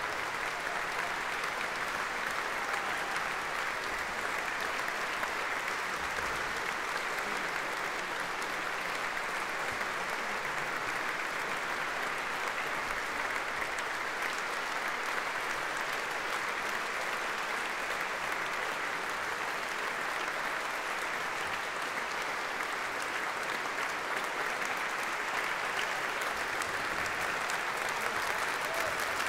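Concert audience applauding steadily: many hands clapping at once, with no music playing.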